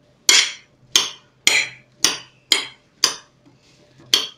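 A small metal teaspoon clinking against a ceramic plate while stirring chopped fruit: about seven sharp, ringing clinks, roughly two a second.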